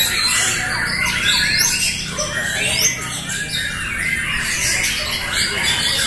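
Many caged white-rumped shamas (murai batu) singing at once, a dense overlapping chorus of whistles, trills and quick rising and falling phrases with no break.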